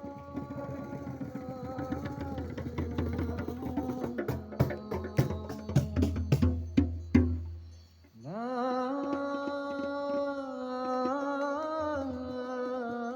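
Indian devotional music: drum strokes, tabla-like, under a held melodic line, the strokes growing denser and sharper in the middle. Near 8 s it drops out briefly, then a sustained melody glides up and holds, moving in steps.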